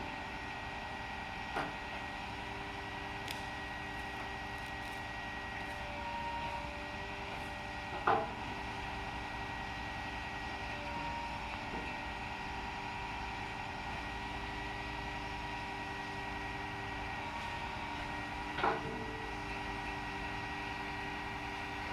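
Heavy truck machinery running steadily, with a droning hum of several fixed tones. A few short knocks or clanks come about one and a half, eight and eighteen and a half seconds in.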